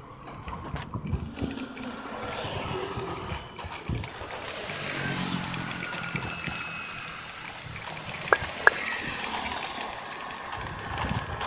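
Busy city street traffic with scooters passing, heard from a moving bicycle, with low rumbling and bumps. Two sharp clicks close together about two-thirds of the way in.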